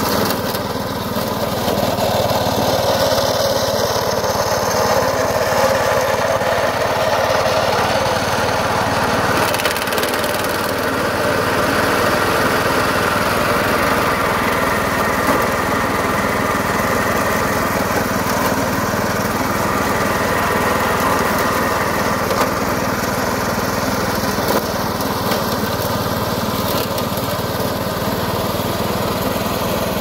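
Small petrol engine of a homemade remote-control lawn mower running steadily as it mows through tall grass.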